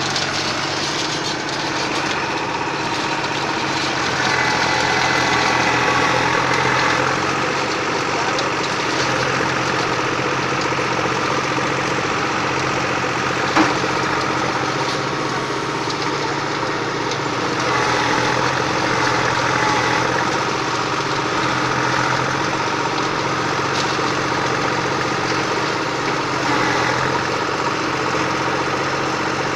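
SAME Agrolux 55 HP tractor's diesel engine running steadily, swelling in level twice, with one sharp knock about halfway through.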